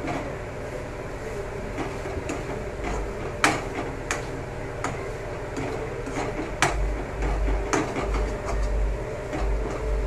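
Steel spoon stirring and scraping grated pumpkin as it roasts in ghee in a steel kadai, with sharp clinks of the spoon against the pan every second or so over a steady hum. The pumpkin is being roasted until its remaining moisture cooks off.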